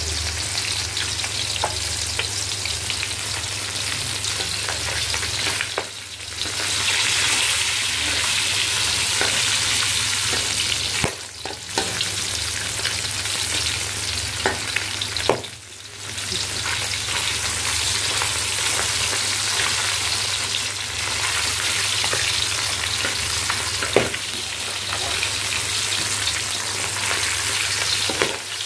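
Fish pieces deep-frying in hot oil in a metal wok: a steady sizzle that drops briefly three times. A few sharp clicks and scrapes come from a metal spatula turning the pieces.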